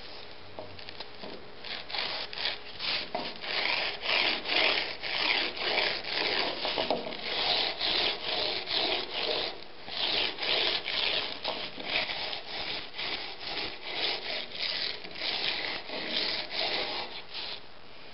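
Steel chisel bevel being honed at 30 degrees on abrasive paper in a honing guide: steady back-and-forth scraping strokes, roughly two a second, that start about a second and a half in and stop just before the end.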